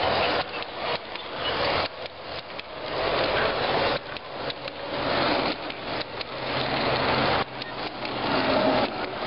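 Large-scale garden railway freight cars rolling past close by, their metal wheels clattering along the track with frequent sharp clicks. The sound swells and dips as each car goes by.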